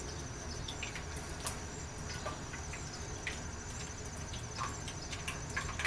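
Rice-paper spring rolls deep-frying in hot oil: a steady sizzle with scattered small pops and crackles.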